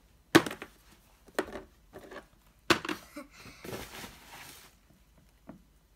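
Hard plastic Littlest Pet Shop figures being handled and set down: three sharp knocks about a second apart, the first the loudest, then a stretch of rustling and a faint click near the end.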